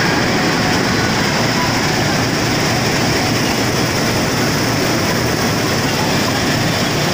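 New Hira combine harvester running steadily while it cuts wheat: a loud, even mechanical noise that does not change.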